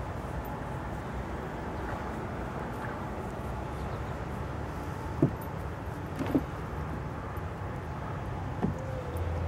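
Steady outdoor background rumble, with three brief squeaks about five, six and nearly nine seconds in.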